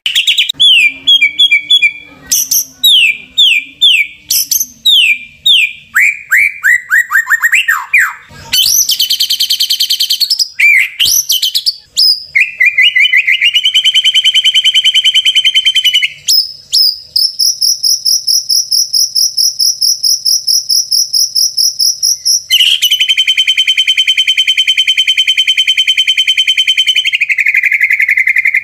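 White-rumped shama (murai batu) song used as a lure recording: a quick series of clear whistles sliding down in pitch, then a short harsh rattle, then long, even, rapid trills held for several seconds at a time.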